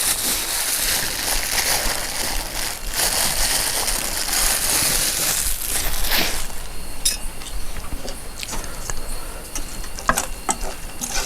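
Vegetables sizzling in a hot pan as they are stir-fried, a loud steady hiss that dies down about halfway through. After that come scattered light clicks and knocks of a utensil against the pan.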